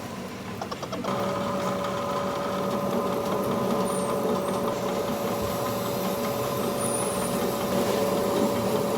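A machine motor running steadily with a constant whine and hum.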